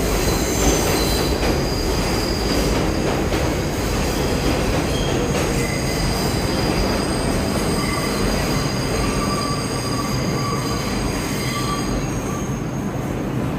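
New York City subway train moving along the track with wheel squeal: several thin high squealing tones come and go over a steady rumble.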